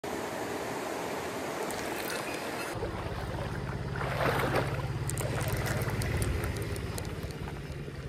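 Stream water rushing over rocks, a steady noise, giving way about two and a half seconds in to a deeper, steady low rumble that fades near the end.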